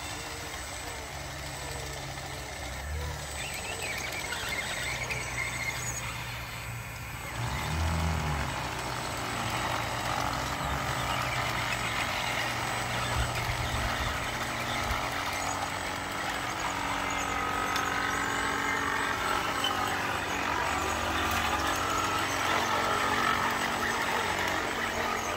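Radio-controlled toy construction machines running: a steady low hum, joined from about seven and a half seconds in by a higher whine that wavers in pitch.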